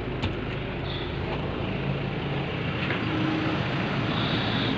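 Toyota Coaster bus engine idling steadily, a low hum heard from inside the cabin, with a single click about a quarter second in.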